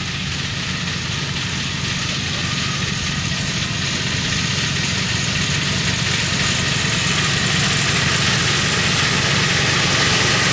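Miniature steam locomotive hauling passenger carriages approaches along the track, its running noise growing louder toward the end, over a steady low mechanical hum.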